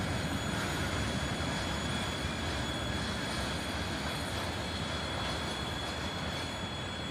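Freight train of hopper cars and open wagons rolling along the rails, a steady dense rumble with a thin, steady high-pitched squeal over it, easing slightly in loudness.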